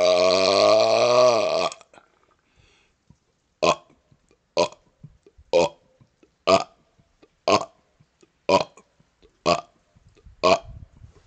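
A man's long, drawn-out burp that dips in pitch as it ends about two seconds in, followed by a run of eight short burps, about one a second.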